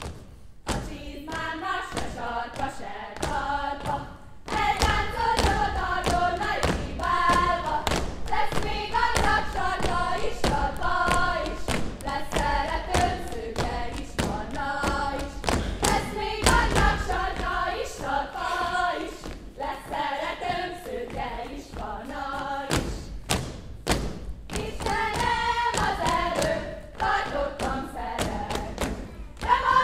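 A group of voices singing a Hungarian folk song in unison without instruments, with a pause about four seconds in. Rhythmic thumps of dancers' feet on the stage run alongside the singing.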